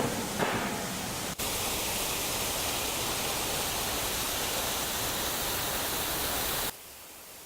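Steady rush of falling water from a waterfall, dropping abruptly to a quieter hiss near the end.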